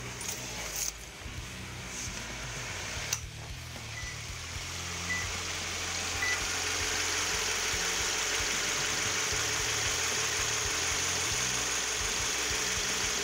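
2013 Subaru BRZ's 2.0-litre flat-four boxer engine idling steadily, fitted with a Zeta Performance intake tube and sound generator, heard from outside the car. It grows louder over the first six seconds, then holds steady, with two sharp clicks in the first few seconds.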